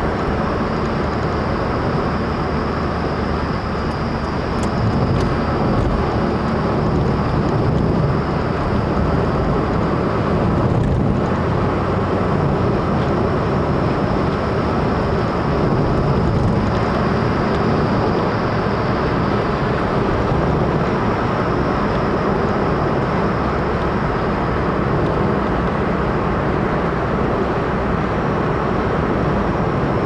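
A car driving at expressway speed: steady tyre and road noise with engine hum, heard from inside the car.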